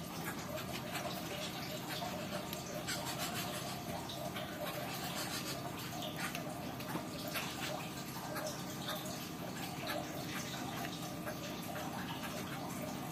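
Water trickling steadily, with many small drips and splashes.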